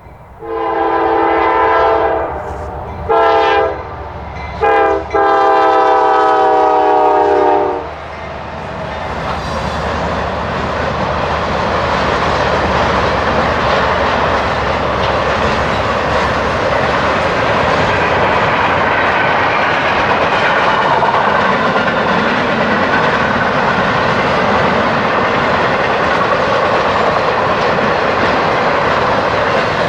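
A freight locomotive's air horn sounds four blasts: a long one, a shorter one, a very short one, and a final long one that is held longest, the pattern of a grade-crossing signal. Then comes the steady noise of the freight train passing, its wheels clacking on the rails.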